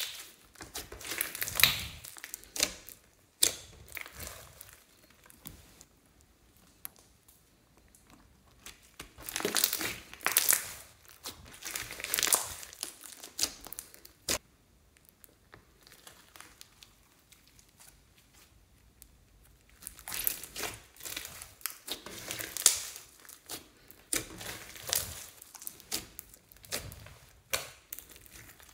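Hands squeezing and kneading clear slime full of glitter and beads: wet crackling and squishing in three bouts, with quieter pauses between.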